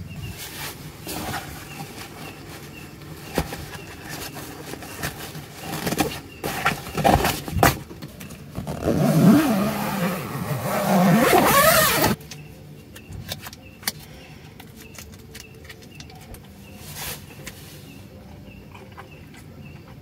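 Fabric rustling and handling noise as bedding and tent cloth are moved about, with scattered soft knocks. It is loudest for a few seconds in the middle, where the phone brushes along the tent fabric.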